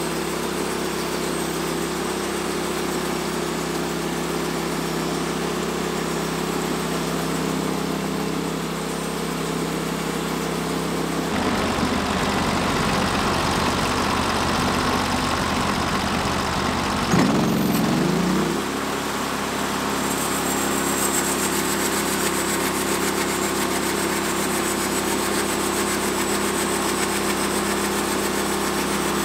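Norwood LumberPro HD36 portable bandsaw mill running as its band blade saws through a white pine cant, the air-cooled gas engine steady under load. About a third of the way in the sound turns louder and rougher, with a brief loud sweep in pitch about two-thirds through before it steadies again.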